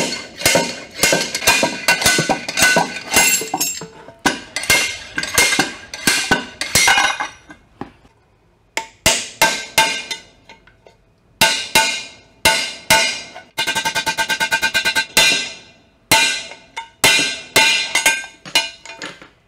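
A hammer striking a steel race driver again and again to seat a bearing race in the aluminium transmission case. Each blow rings sharply, about two blows a second, with a short pause about 8 s in and a fast run of light taps in the middle.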